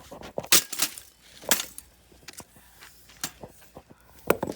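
Sledgehammer striking a bicycle, a series of sharp blows about one a second, the first two the loudest.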